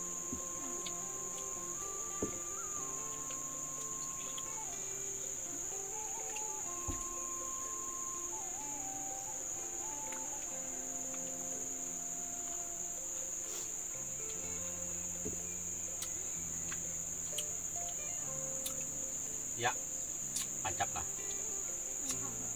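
Steady high-pitched drone of a forest insect chorus, unbroken throughout, with a few faint clicks.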